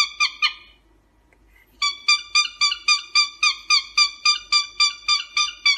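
Cockatiel giving a quick run of identical high chirping whistles, about four a second; it stops for about a second and a half near the start, then starts again.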